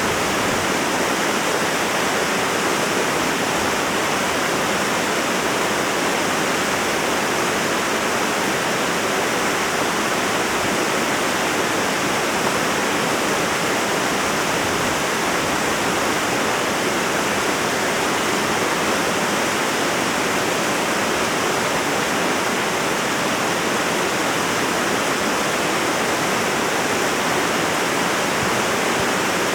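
Waterfall of about 30 to 40 feet pouring in several cascades into a pool below, a loud, steady rush of falling water heard close up.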